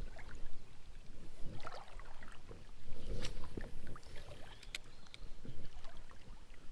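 Shallow creek water rippling and lapping around a wading angler, with scattered light clicks and ticks from the spinning reel and rod being handled.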